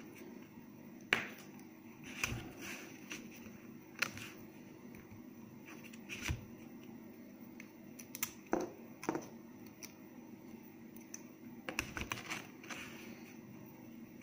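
Scattered light clicks and taps of hand pliers bending thin 0.6 mm stainless steel wire into a clip, a dozen or so short ticks spread out with small pauses between, over a faint steady hum.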